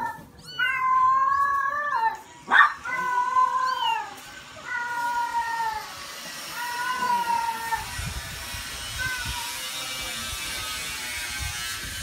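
Kittens mewing repeatedly: high, thin calls, each about a second long and falling in pitch, coming every second or so and thinning out after about seven seconds. A sharp click sounds about two and a half seconds in.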